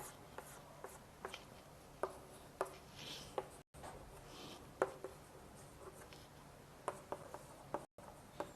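Quiet, irregular taps and short scratches of a pen writing on a surface as characters are written onto a diagram.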